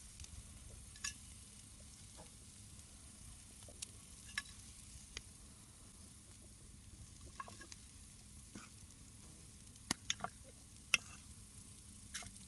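Wood campfire crackling: scattered sharp pops over a faint steady hiss, with a quick run of louder pops near the end.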